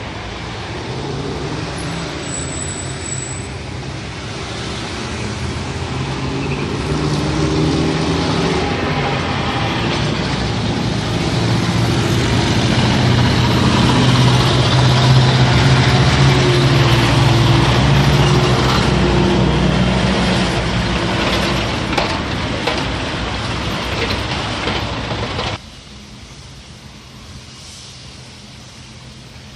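Loud heavy-vehicle engine running close by, growing louder toward the middle and then easing off, over a steady rush of flowing water. Near the end the engine cuts off suddenly, leaving only the quieter rush of water.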